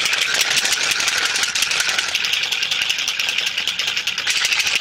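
Plastic protein shaker bottle shaken hard, a fast, even rattle that keeps on without a break.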